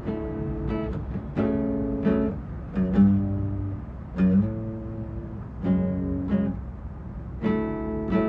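Acoustic guitar played slowly, a chord struck about once a second and left to ring, with a few low bass notes in the middle.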